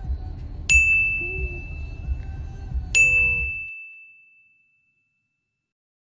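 Two bright ding chimes about two seconds apart, each ringing on one clear tone, over the low rumble inside a car. The rumble and the second chime fade out about four seconds in.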